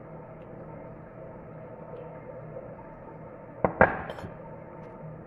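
Two sharp knocks close together about three and a half seconds in, with a short ring after: a jar being set down on the kitchen counter. A steady hum runs underneath.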